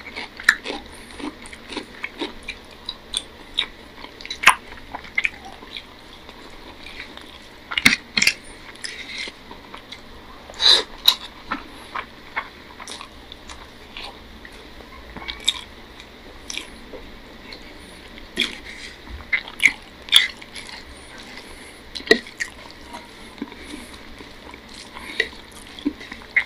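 Close-up eating sounds of rice and curry eaten by hand: wet chewing with irregular lip smacks and clicks, a few each second, with no steady rhythm.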